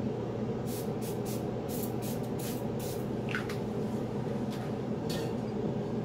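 A spray bottle misting in short hissing puffs, about ten of them, irregularly spaced, over a steady low hum.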